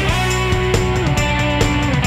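Background music: rock-style instrumental with guitar and a steady beat.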